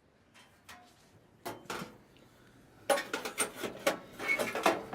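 A couple of single knocks, then from about three seconds in a rapid clatter of clicks, knocks and rattles, as of hard parts of a clothes dryer being handled and struck.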